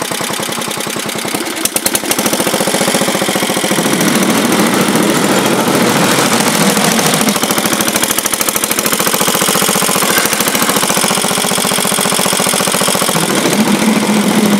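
1967 Sears Suburban 10 garden tractor's engine running steadily while pushing snow with its front plow blade. It gets louder about two seconds in.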